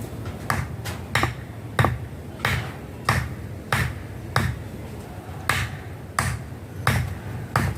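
Steady hammering, about three blows every two seconds, with a brief pause about halfway through.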